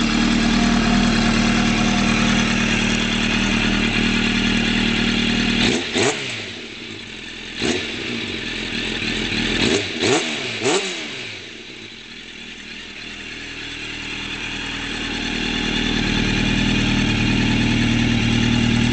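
2003 Suzuki Katana 600's inline-four engine running through a D&D full exhaust system (header, mid-pipe and can). It idles steadily, then is blipped with several quick throttle revs from about six seconds in to about eleven seconds in. Each rev rises and falls back sharply before the engine settles to a steady idle again.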